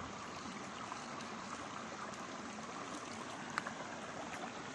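A steady, even rushing noise, like running water, with one short click about three and a half seconds in.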